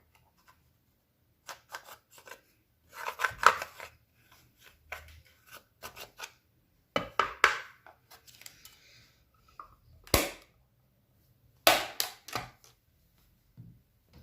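Clear glossy slime being worked by hand: clusters of sharp, irregular pops and clicks, several loud bunches spread through, with quiet gaps between.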